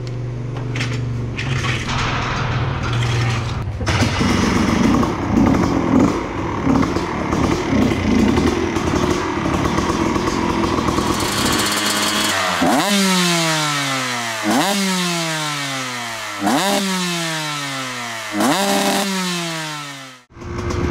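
Two-stroke Kawasaki Ninja 150 motorcycle engine, freshly rebuilt. It runs unevenly for the first dozen seconds, then is revved four times, each a sharp rise in pitch followed by a slow fall over about two seconds. The sound cuts off abruptly near the end.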